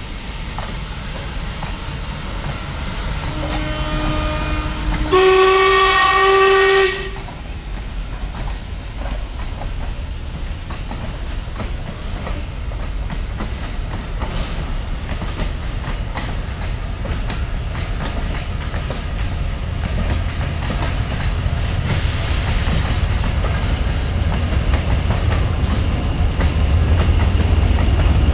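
Steam locomotive whistle: a quieter, lower note about three seconds in, then a louder, higher blast of nearly two seconds with a short break. After it the steady rumble of the train running past follows, wheels on the rails growing louder toward the end, with a couple of brief hissing bursts.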